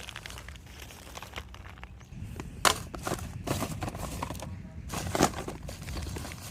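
Rustling and crinkling of rubbish being handled, with two sharp knocks, one near the middle and one about two-thirds through.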